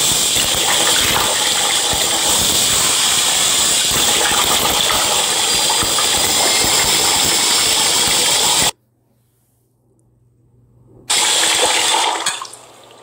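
Bathroom tap running hard, water splashing into the sink while foam is rinsed off a face. The steady rush cuts off abruptly about nine seconds in, comes back about two seconds later and dies away near the end.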